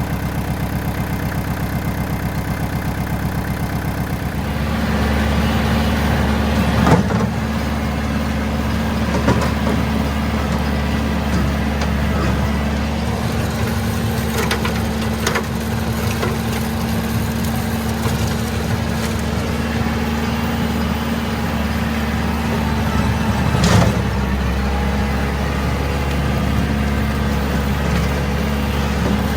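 Kubota tractor's diesel engine running steadily, getting louder and fuller about four seconds in and staying there, with a few sharp knocks here and there.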